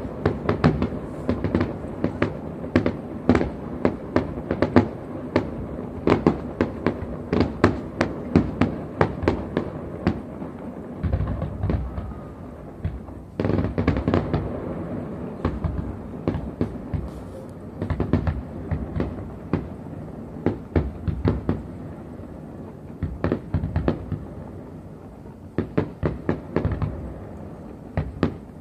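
Fireworks display: aerial shells bursting in quick, irregular volleys of sharp bangs and crackle over a low rumble, easing off in two brief lulls before picking up again.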